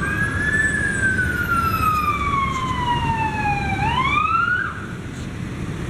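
Emergency vehicle siren in a slow wail: it rises, glides down over about three seconds, then swoops up again and fades out about five seconds in. A steady low rumble of traffic or engines runs underneath.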